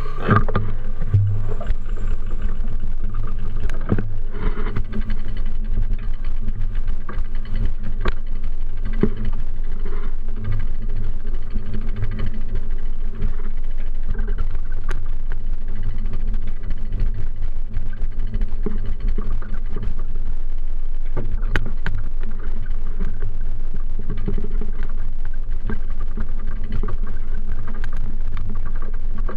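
Steady low rumble of a bicycle-mounted camera riding along a city street: road vibration and wind noise on the microphone, with scattered small knocks from bumps in the pavement.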